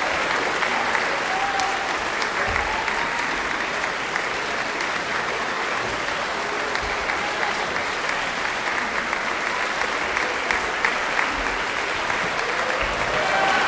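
Audience applauding steadily, a continuous dense clapping with a few faint voices heard over it.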